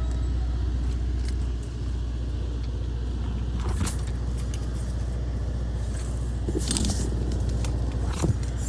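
Motor vehicle engine running with a steady low rumble, with a few short knocks or clicks about four, seven and eight seconds in.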